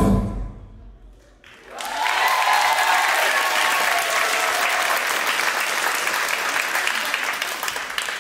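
The music's last note dies away, then about two seconds in an audience breaks into loud, steady applause with cheering, which starts to fade near the end.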